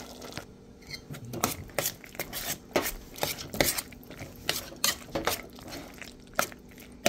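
A utensil stirring cooked penne into a creamy sauce in a stainless steel saucepan, with irregular clinks and knocks against the metal pan.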